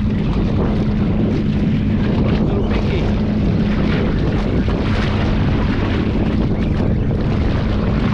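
Boat motor idling with a steady low hum, mixed with wind buffeting the microphone and water noise.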